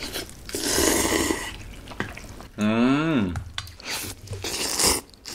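People slurping cold Korean naengmyeon noodles, a long wet slurp about half a second in and more slurping in the second half, with a short falling hum of the voice near the middle.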